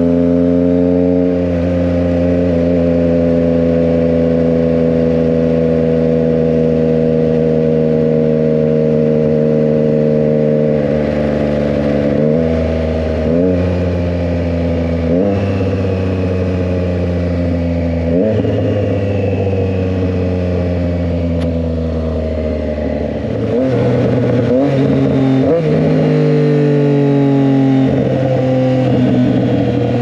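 Triumph Trident 660's inline three-cylinder engine through an SC Project aftermarket exhaust, heard from the rider's seat. It cruises steadily in sixth with the revs slowly falling. From about ten seconds in, a run of downshifts to third each brings a sudden jump in engine pitch, and near the end the engine pulls with rising revs.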